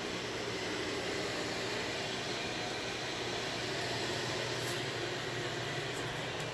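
Steady, even background hiss, with a couple of faint clicks in the last two seconds.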